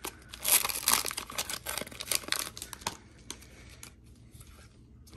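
Foil wrapper of a Pokémon trading card booster pack crinkling as it is torn and peeled open, for about the first three seconds. Then a few light ticks as the stack of cards is handled.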